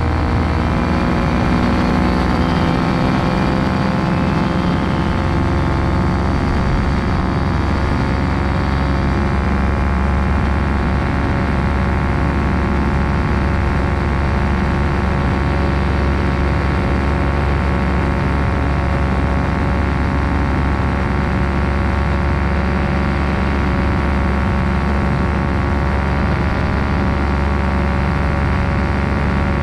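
Two-stroke engine and pusher propeller of a 1983 Quicksilver MX ultralight running steadily in level flight, heard from a wing-mounted camera.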